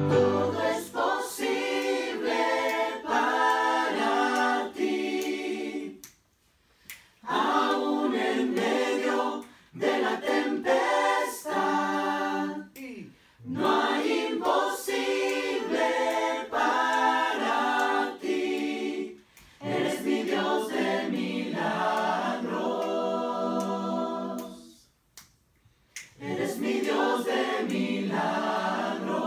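A small group of voices singing a worship song unaccompanied, in harmony parts, in about five phrases with short pauses for breath between them.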